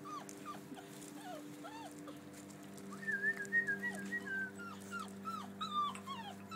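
Five-week-old puppies whimpering and squeaking: a string of short high calls, about two a second, each bending up and then down, with a quicker run of higher squeaks about three seconds in. A steady low hum runs underneath.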